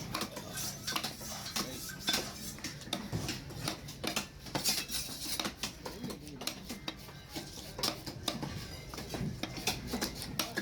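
Fish knife knocking and scraping on a cutting board as fish is cut: quick, irregular clicks and knocks, several a second.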